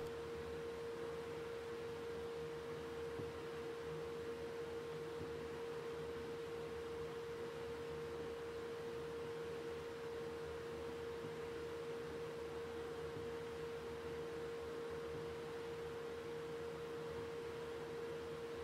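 DC welder supplying current for electrolytic etching of stainless steel, giving off a steady, pure, mid-pitched whine that holds one pitch without change, over a faint hiss.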